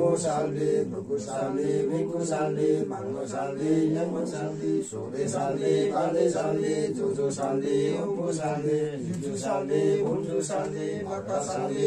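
Male voices chanting together in a continuous, repeating sing-song line, with regular sharp clicks sounding over it.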